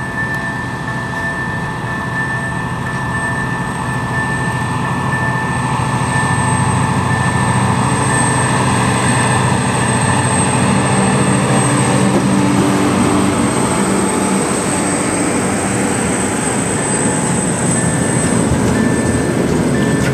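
TEM-TMH diesel locomotive working under load as it pulls a freight train away, its engine growing louder as it comes up and passes. After that, the steady rumble of the tank wagons' wheels rolling by takes over.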